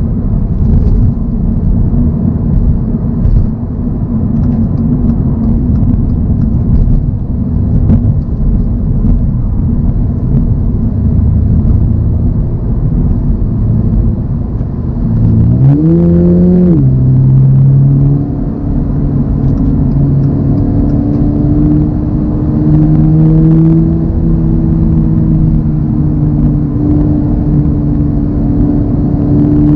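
2024 Toyota GR86's 2.4-litre flat-four engine and road noise while driving. About halfway through, the engine revs up sharply and drops back as it changes gear, then holds a steady note under load before the pitch falls near the end.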